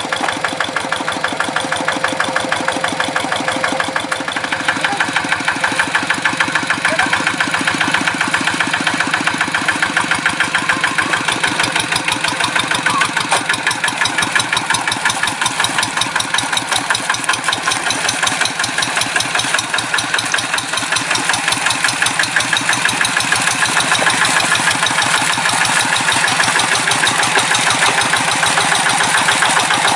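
Kubota RD85 single-cylinder diesel on a Quick G1000 Boxer hand tractor running with a fast, even chugging, working the tractor through deep rice-paddy mud. It gets a little louder about four seconds in and again around eleven seconds.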